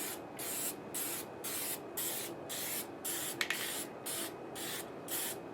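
Krylon spray-paint primer from an aerosol can, sprayed in short hissing bursts about twice a second to lay down light coats on plastic rifle parts. A brief click sounds about halfway through.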